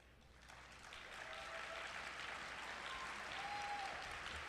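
Audience applauding, swelling up about half a second in and then holding steady.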